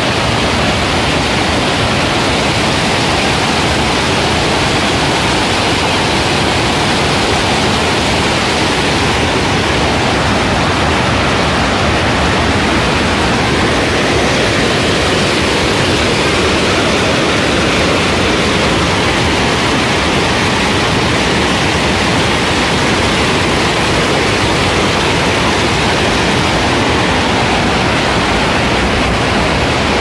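Waterfall up close: many thin streams of water pouring over a mossy rock ledge and splashing below, a loud, steady rushing hiss.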